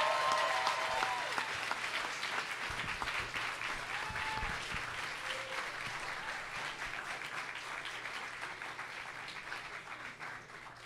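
Audience applauding, the clapping fading away gradually over several seconds.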